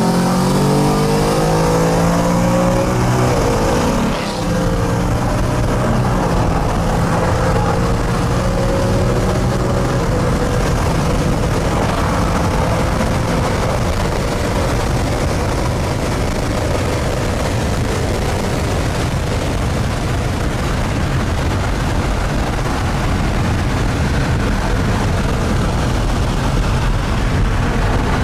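A performance car engine accelerating hard, its pitch climbing, with a brief dip about four seconds in as it shifts gear. It then pulls more slowly higher and holds a steady high-speed run over road and wind noise.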